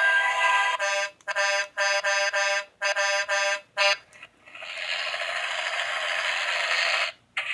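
Sound book's small electronic speaker playing vehicle sound effects: a run of short, horn-like beeping honks, then a steady rushing noise that cuts off suddenly.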